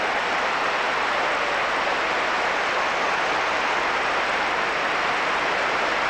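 Arena audience applauding steadily, a dense even clatter of many hands.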